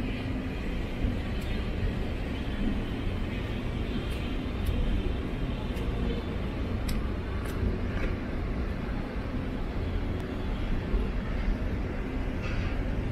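Outdoor city street ambience: a steady low rumble of passing traffic, with a few faint ticks scattered through.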